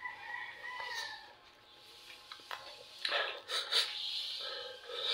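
A dog whining in a thin high tone for about a second at the start, then the wet clicks and smacks of someone eating and tearing apart grilled chicken by hand, loudest a little after the middle.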